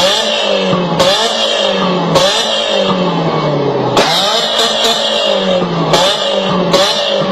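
Loud car engine revved in repeated blips, the pitch jumping up and falling away over about a second each time, with sharp cracks at each blip.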